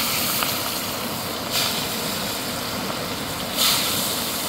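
Fish frying in hot oil: a steady sizzle that swells into louder hissing surges about every two seconds.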